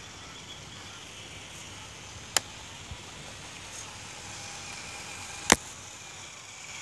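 Small electric RC rock-crawler truck driving on asphalt: a faint motor whine over a steady hiss, with two sharp clicks about three seconds apart.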